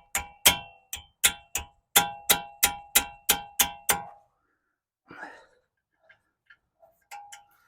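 A small hammer striking a 6 mm Allen key seated in a brake caliper guide-pin bolt: about a dozen quick, ringing metal taps, roughly three a second, to break the very tight bolt loose. The taps stop about four seconds in, followed by a few faint clicks of handling.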